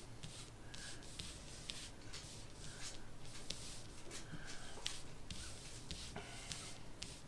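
Playing cards being slid and pushed across a cloth-covered table by several hands at once: a faint, steady rubbing and swishing with many small taps and clicks as cards are moved into place.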